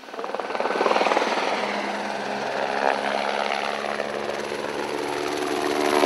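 Helicopter flying low and close overhead: a rapid, even rotor beat over a noisy rush, with steady engine tones running through it.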